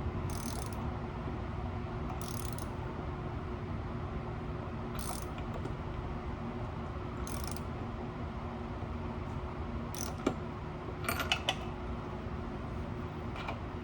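Ratchet wrench clicking in short spells every two to three seconds as the bike engine is turned over by hand to set the cam timing, with one knock about ten seconds in.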